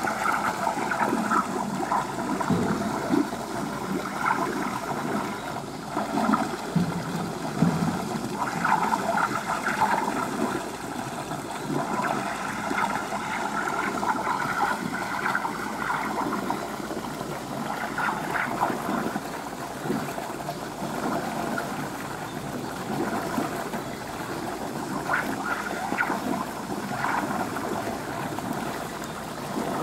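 Water running steadily in a pool, with an even rushing sound and small splashy flickers.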